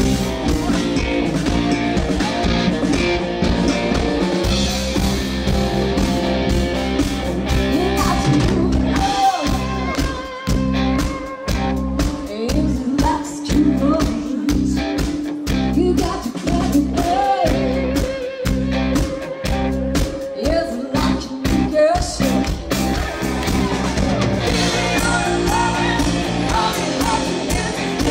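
Live rock band playing: a woman singing lead over electric guitars, bass guitar and drums. About nine seconds in, the band drops to short, clipped hits with gaps between them under the singing, and a few seconds before the end the full band comes back in.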